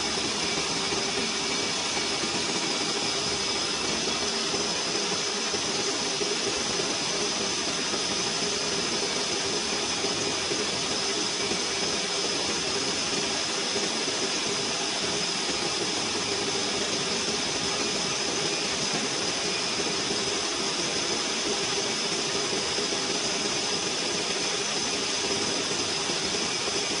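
Metal lathe turning a 1.4301 (304) stainless steel pipe: steady cutting noise with a held high whine and a lower hum.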